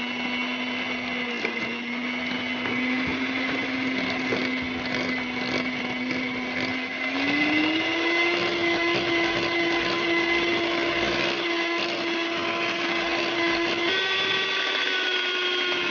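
Electric hand mixer running, its twin beaters whipping shortening and sweetened condensed milk in a glass bowl. The steady motor whine steps up in pitch about seven seconds in and shifts again near the end.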